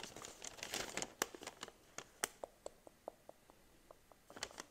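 A paper shop receipt being handled and unfolded: a soft rustle at first, then scattered small paper ticks and crinkles, with a short cluster of them near the end.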